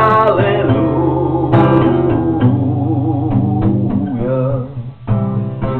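A man singing a drawn-out, wavering held note over a strummed acoustic guitar. The voice fades a little after four seconds, the guitar drops briefly near the end, then the strumming picks up again.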